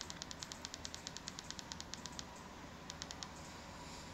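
Fire TV remote's button clicking rapidly, pressed over and over to delete text one character at a time, about ten sharp clicks a second with two short pauses.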